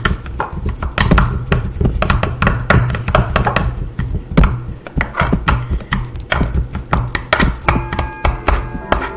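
Metal spoons chopping softened ice cream on a wooden butcher block: rapid, irregular knocks and taps, several a second, from two people chopping at once. A few held musical tones come in near the end.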